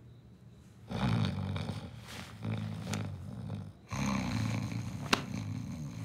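A man snoring: three long snores in a row, the first starting about a second in, with a brief sharp click during the last one.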